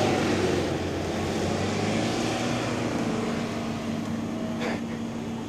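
Off-road vehicle engine running, a steady drone that gradually gets quieter, with one short knock near the end.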